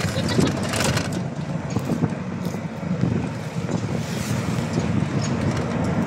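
Steady engine and road noise of a moving vehicle, heard from inside the passenger compartment.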